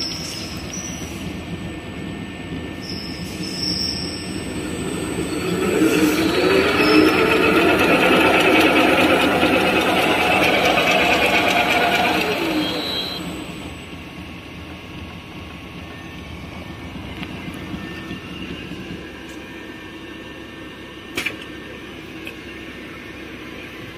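Label slitting machine running: about five seconds in the drive speeds up with a rising whine and runs loud, then slows with a falling whine about thirteen seconds in to a quieter steady hum. A single sharp click comes near the end.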